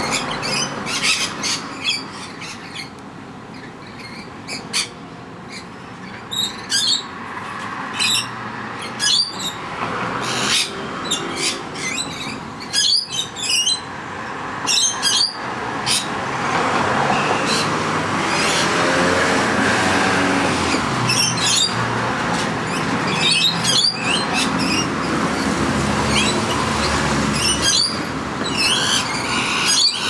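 Rainbow lorikeets screeching: many short, shrill, raspy calls in quick runs while the flock feeds. A steady low rumble builds under them from about halfway.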